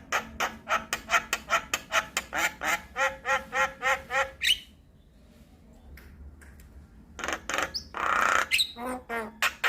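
Javan myna (jalak kebo) giving a rapid series of short, harsh calls, about four a second. It breaks off for about two and a half seconds, then resumes with one longer, noisier call before the quick calls return.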